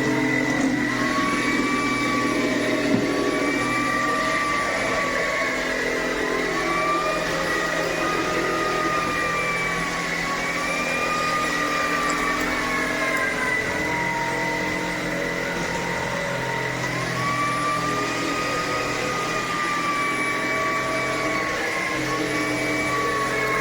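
Cordless stick vacuum cleaner (Tineco A30S) running steadily, its motor whine wavering slowly up and down in pitch every few seconds over a steady rush of air.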